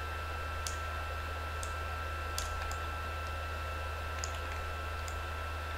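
Light computer mouse clicks, scattered at roughly one or two a second, over a steady electrical hum with a thin high whine.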